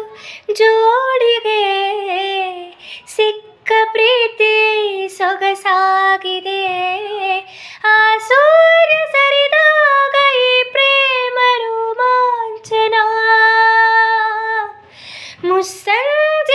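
A young woman singing a Kannada song solo with no accompaniment, in long melodic phrases. A long steady held note comes near the end, followed by a quick breath in.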